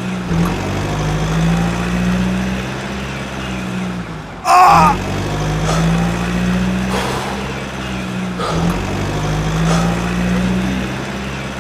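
Heavy truck engine sound running steadily in a low hum that repeats about every four seconds, with a brief loud, high, wavering sound about four and a half seconds in.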